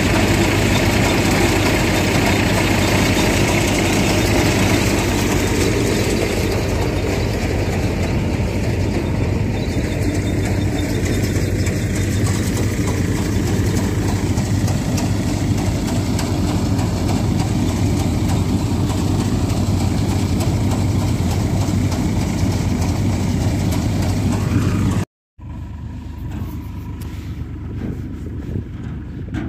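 Tractor-powered groundnut thresher running steadily: a constant engine hum under the noise of the threshing machinery. About 25 seconds in the sound cuts out for a moment, and the thresher then runs on much quieter, heard from further off.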